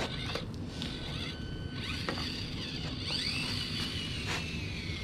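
Axial SCX24 Deadbolt micro crawler's small electric drive motor and gearbox whining as it crawls, the pitch rising and falling with the throttle, with a longer whine that falls slowly in the second half.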